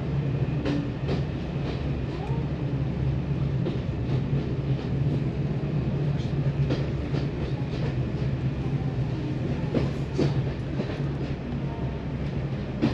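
Heritage diesel train running along the line, heard from on board: a steady low drone with scattered clicks and knocks from the wheels on the track.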